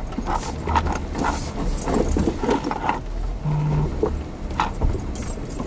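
Jeep Wrangler crawling slowly over a rocky trail: its engine runs low and steady under a string of light clicks and rattles as the vehicle jolts, heard from inside the cabin.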